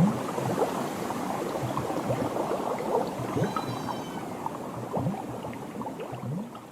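Water bubbling and gurgling: a dense run of small rising plops that fades away near the end.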